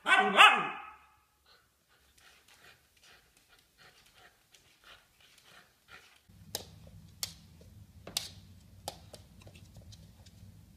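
A puppy gives a short, loud howl lasting about a second, followed by faint panting. About six seconds in, a low steady hum begins, with several sharp clicks over it.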